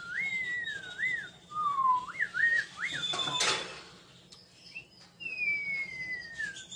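Whistling: one clear tone that slides up and down in short wavering phrases, then a long, slowly falling note near the end. A brief rustling noise comes about halfway through.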